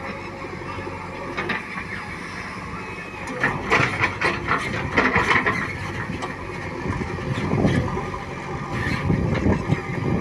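Diesel engine of heavy earthmoving machinery running steadily, with a burst of clattering knocks about three and a half seconds in and a few more later on.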